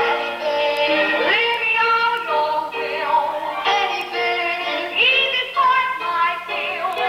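Cast of a stage musical singing a number with musical accompaniment.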